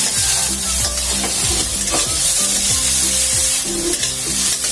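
Chopped vegetables sizzling in oil in a steel kadhai while a steel spatula stirs and scrapes them around the pan.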